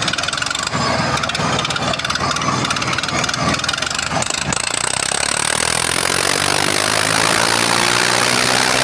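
Sonalika and Swaraj 744 tractors' diesel engines running hard during a tug-of-war pull; about halfway through the sound settles into a steady engine note that slowly climbs, with a thin high whine over it.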